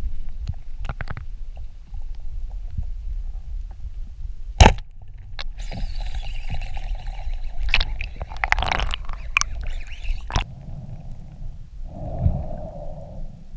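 Underwater sound of a speargun firing: one loud sharp crack about four and a half seconds in, over steady low rumbling water noise on the camera housing, followed by a few seconds of higher hissing and rattling.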